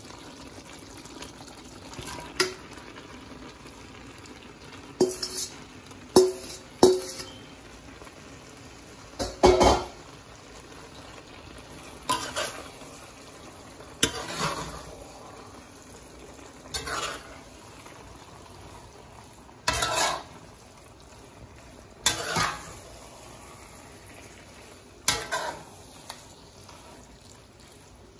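Metal ladle stirring and tossing spaghetti into sauce in a metal pot. The ladle clinks against the pot about a dozen times, every two to three seconds, with a swishing scrape of the noodles after each stroke.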